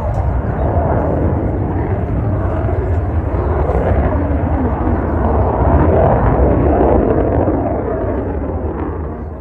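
Jet engine noise from a Saab JAS 39 Gripen fighter on a display pass overhead: a loud, steady rushing sound that swells to a peak about six seconds in and then starts to fade as it passes.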